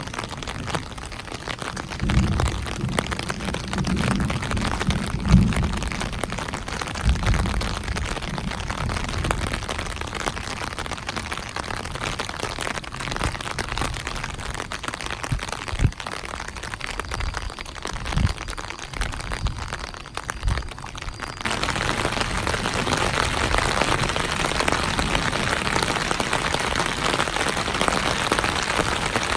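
Rain falling steadily, with low rolls of distant thunder rumbling in the first few seconds; about two-thirds of the way through it cuts suddenly to a louder, denser downpour.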